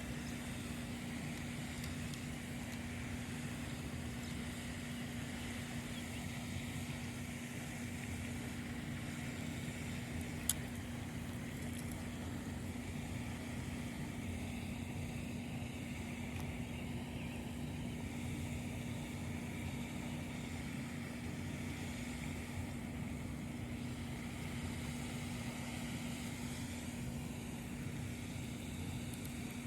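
Steady drone of a running motor with one sharp click about ten seconds in.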